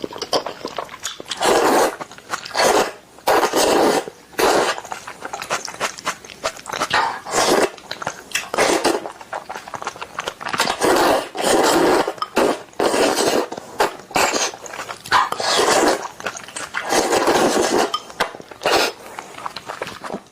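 Close-miked eating of Indomie instant noodles: repeated slurps and chews, with a burst about once a second.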